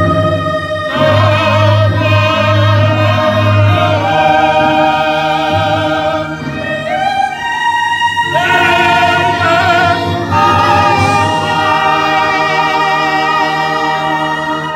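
Mixed Tongan church choir singing a hymn in several parts, with men's and women's voices holding long notes in phrases that change every few seconds.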